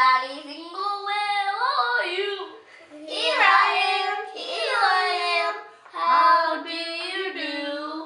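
A young child singing in a high voice, several phrases with sliding, held notes.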